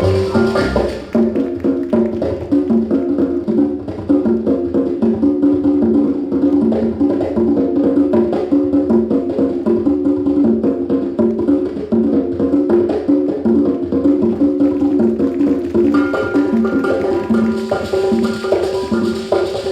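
Dance music playing, with a busy, steady percussive beat over a repeating low melodic figure; brighter upper parts come back near the end.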